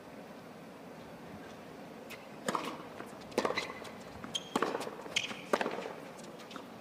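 Tennis serve and rally on a hard court: sharp racket strikes on the ball and ball bounces, about one every half second to a second, starting about two seconds in.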